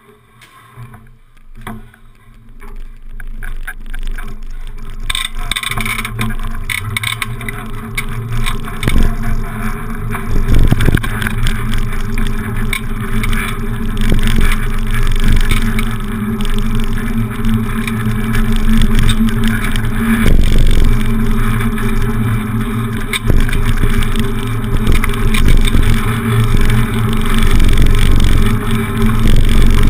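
Wind rumbling on the microphone of a bicycle-mounted camera, mixed with tyre and street noise as the cruiser bicycle is ridden. It starts faint and builds to a loud, steady rumble over the first several seconds.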